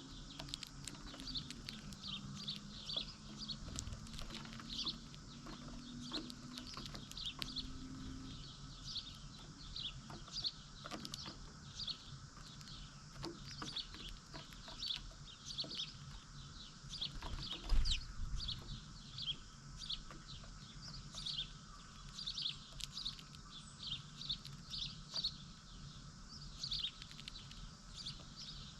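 A flock of small birds chirping continuously, with short high chirps following each other a few times a second. A single thump sounds about halfway through.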